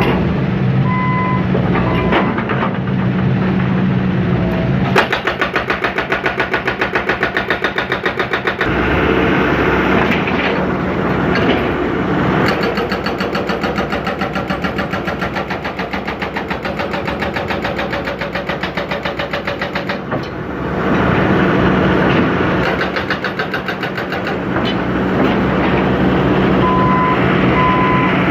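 John Deere 160C excavator's diesel engine running steadily under load, with a fast, even clatter of about a dozen strokes a second through the middle as the machine works on concrete. Short electronic beeps sound near the start and again near the end.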